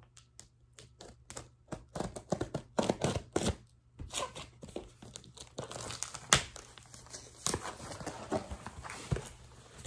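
Packaging being handled: a shopping bag and its paper wrapping rustling and crinkling irregularly, with a few sharper crackles.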